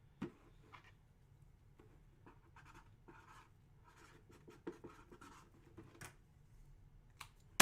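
Faint scratching of a pen writing on paper, with scattered light clicks and a sharper tap just after the start.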